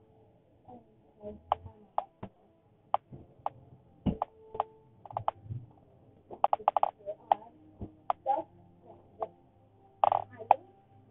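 Irregular sharp clicks and taps from a fabric bag being handled and packed, coming in a quick cluster about six to seven seconds in and again near the end.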